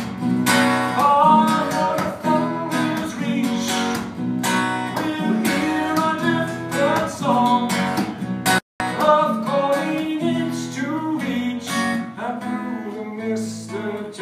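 Acoustic guitar strummed and picked in an instrumental passage of a slow folk song, with a brief break in the sound about two-thirds of the way through.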